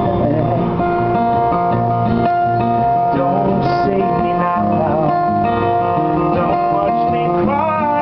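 Live acoustic guitar strummed through a small PA, with a man singing phrases over it.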